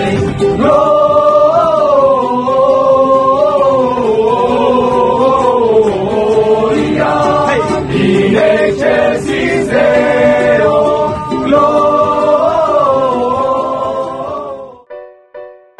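A group of young priests singing a cappella together, several voices holding long sung notes. About a second before the end the singing cuts off and soft piano music begins.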